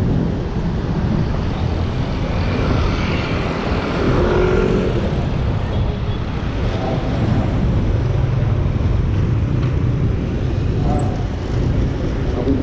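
Steady road traffic noise from passing cars and other motor vehicles.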